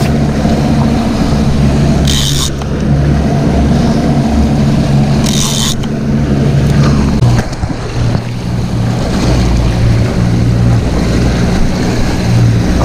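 Boat's outboard engine running steadily, with wind and water noise; two short hisses about two and five and a half seconds in.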